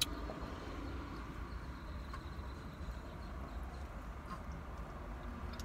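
Steady low rumble inside a car, with a sharp click at the start and a few fainter clicks about two seconds apart as fried chicken is eaten from a foam takeout box.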